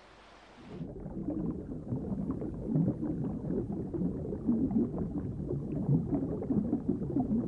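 Muffled underwater bubbling and water movement, with the high end cut off. It starts about a second in, after a brief faint hiss.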